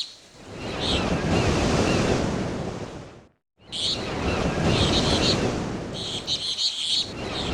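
A rushing wash of noise swells and fades twice, broken by a sudden cut to silence a little past three seconds in. Short high bird chirps repeat over it.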